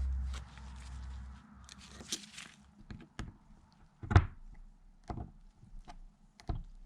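Scattered light clicks and taps of small metal lifter parts being handled and pressed together as a hydraulic lifter's check valve is seated in its plunger. A low hum fades out about a second and a half in.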